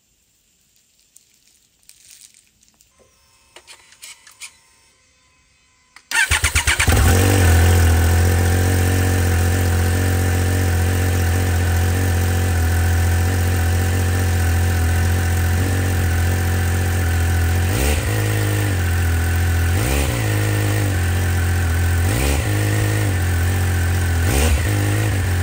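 Triumph Speed Triple 1200 RS's 1160 cc inline three-cylinder engine starting about six seconds in and idling steadily through its factory exhaust. It is blipped four times, about two seconds apart, in the last third. Faint clicks come before the start.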